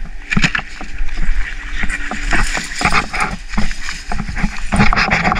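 Footsteps swishing through tall grass: irregular brushing and rustling strokes close to the microphone, over a steady low rumble.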